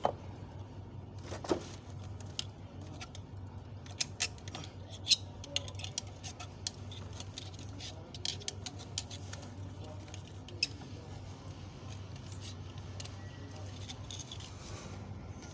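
Irregular small metallic clicks and clinks from hands working at a forklift steering knuckle's kingpin bore, centring the spacer and thin seal before the new kingpin is driven in. A steady low hum sits underneath.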